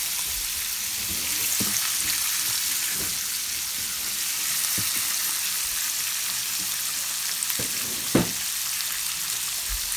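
Slices of venison sizzling steadily in hot oil in a cast iron skillet, with a few light knocks; the sharpest comes about eight seconds in.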